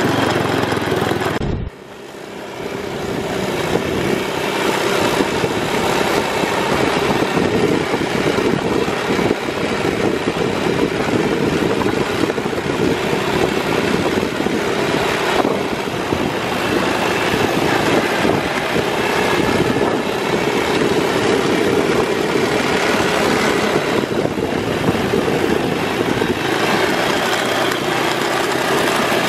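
Off-road buggy running at speed over a dirt track: a steady engine drone under wind and road noise. The sound cuts out for a moment about a second and a half in, then picks up again.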